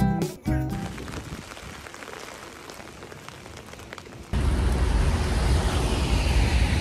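Rain falling on a large umbrella overhead. At first it is a soft, even hiss; about four seconds in it turns much louder, with a deep rumble under the patter.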